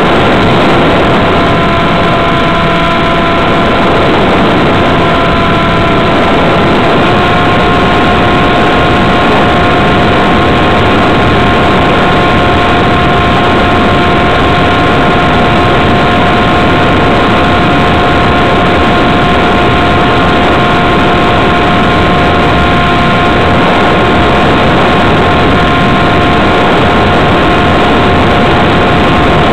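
Radio-controlled model plane's motor and propeller running steadily, heard from its onboard camera with wind rush over it. The whine steps up slightly in pitch about seven seconds in.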